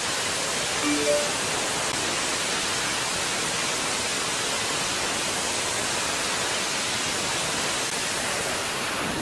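F/A-18 Super Hornet's twin jet engines running at full power on the carrier catapult: a steady, unbroken roar of rushing noise with no change in pitch or level.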